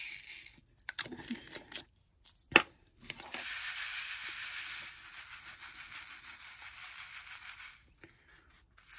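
Small plastic diamond-painting drills rattling into a plastic tray as they are poured out, a steady grainy patter for about four and a half seconds. A sharp click comes just before the pouring starts.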